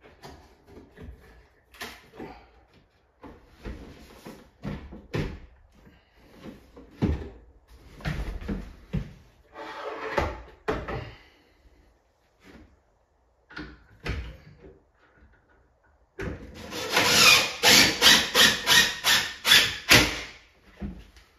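Scattered wooden knocks and clatter as a cabinet is handled and pushed into place. Near the end comes a loud, pulsing run of about four seconds from a cordless drill/driver driving a screw through the cabinet.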